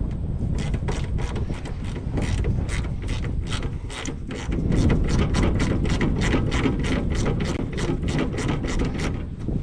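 Hand ratchet wrench clicking in a steady run, about three clicks a second, as bolts on the loader's belt shroud are backed out, over a steady low rumble.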